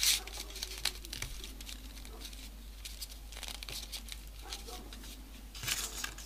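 Folded paper triangle modules of a 3D origami model rustling and crinkling as they are handled and pushed into the slots between other modules. There is a louder crinkle right at the start and another cluster near the end.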